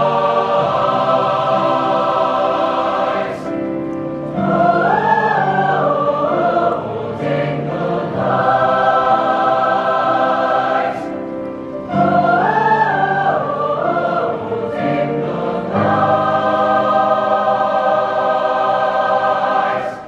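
Large mixed-voice choir singing sustained chords. Twice, for a few seconds each time, an upper part moves in a quick, winding figure over the held notes. The singing stops sharply at the end.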